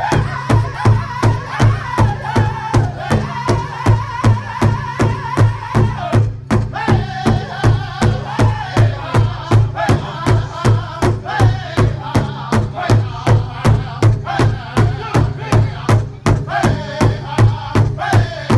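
Powwow drum group singing together over a large shared hide drum, the drumsticks striking it in unison at about two and a half beats a second. A high held note opens the passage, the voices break off briefly about six seconds in, then the song and steady drumbeat carry on.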